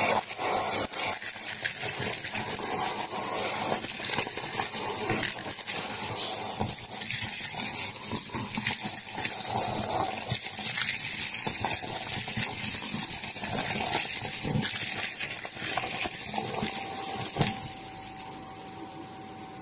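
Shark vacuum cleaner sucking up a pile of fluff, popcorn kernels and small craft bits from carpet: a steady rushing suction full of rattling clicks as hard bits are pulled up the tube. Near the end the rattling stops and a quieter steady motor sound with a thin whine is left.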